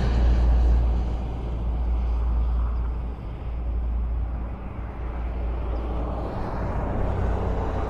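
Highway traffic: vehicles passing with a steady low rumble and tyre noise. One vehicle fades away over the first few seconds and another approaches near the end.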